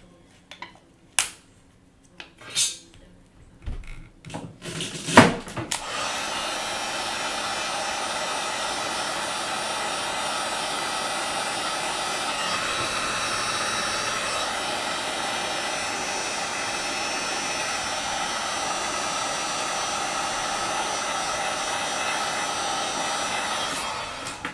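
A few clicks and knocks, then about six seconds in a hot-air blower switches on and runs steadily for some eighteen seconds, stopping just before the end. It is heating the tablet screen to soften the thick adhesive that holds the digitizer glass.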